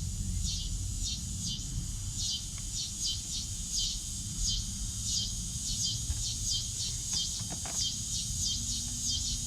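Repeated high-pitched chirps from wildlife, each a quick downward sweep, a couple to three a second, over a steady low background rumble.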